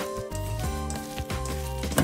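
Background music with held notes over a bass line.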